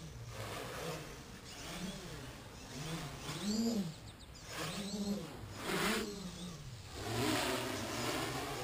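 Small quadcopter's motors and propellers whining, surging up and falling back in pitch several times as the throttle is punched during an attempted flip.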